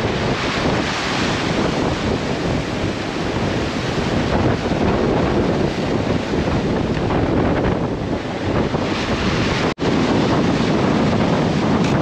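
Strong wind buffeting the microphone over the rush of breaking waves around a sailboat in heavy weather. The sound cuts out for an instant near the end, then resumes.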